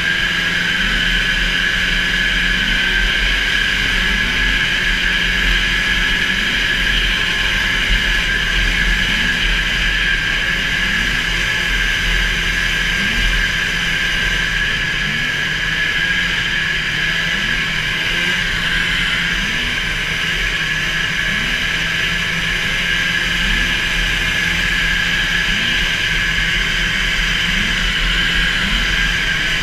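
440 super stock racing snowmobile's two-stroke engine running flat out, holding high revs with little change in pitch.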